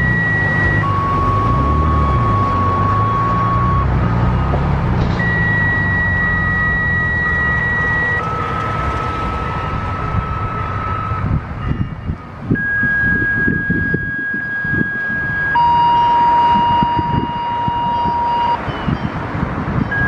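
Radio activation tones for outdoor warning sirens, sent as two-tone sequential pages: pairs of steady beeps, each a higher tone of about three seconds followed by a lower tone of about three seconds, with a short gap and a different pitch pair each time. A low rumbling noise runs underneath.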